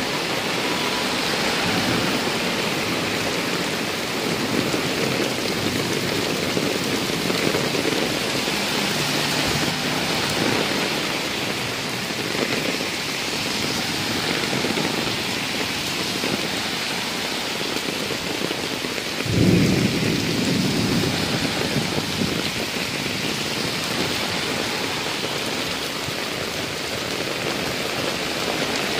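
Heavy rain pouring steadily onto a road and pavement. About two-thirds of the way through, a sudden low rumble rises over the rain for a couple of seconds.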